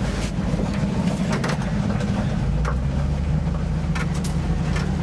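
Ford SVT Lightning pickup's V8 engine running steadily at low revs, with a few light clicks.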